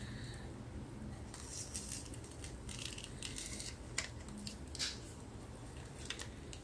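Soft rustling with a few small clicks and taps as craft materials are handled and set in place.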